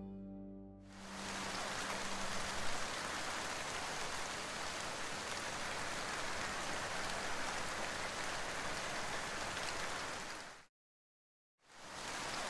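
Steady, even hiss of heavy rainfall, a rain sound effect; it drops out to complete silence for about a second near the end, then comes back. A tail of music fades out in the first second.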